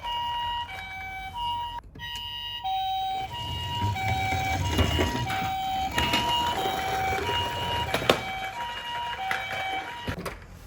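Electronic two-tone ambulance siren of a toy ambulance minicar, the Japanese hi-lo "pee-po" pattern: a higher and a lower steady tone alternating about every two-thirds of a second, cutting out briefly just under two seconds in and then resuming. Under it, a low rumble of toy wheels rolling on cardboard and a few sharp knocks.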